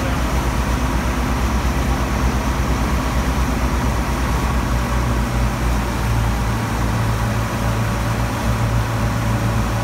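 Powerboat engine running steadily at speed under way, a low drone that grows a little stronger about halfway through, over the rushing of the churned-up wake.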